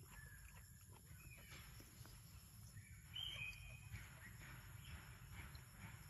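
Quiet forest ambience with a few faint, short high chirps, the clearest about three seconds in.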